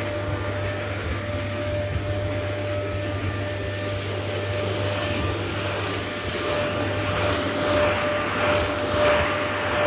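Vacuum cleaner running steadily with a constant whine and hum; in the second half its rushing noise swells and eases several times as the nozzle is worked over a spring mattress.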